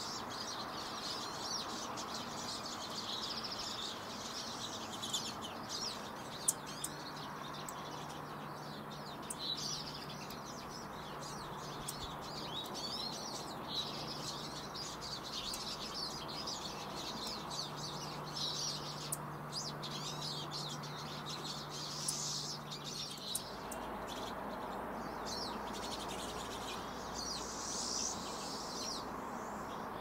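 Several small wild birds chirping and singing, with short, frequent high calls and trills over a steady outdoor hiss. A faint, steady low hum runs through the middle part.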